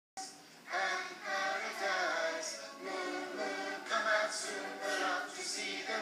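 Background music: a group of voices singing unaccompanied, in choir-like phrases.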